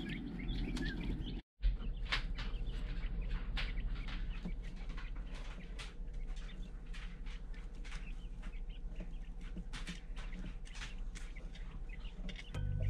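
Young tuxedo Coturnix quail peeping and chirping in a brooder: many short, sharp calls from several birds, over a steady low hum, with a brief gap about a second and a half in.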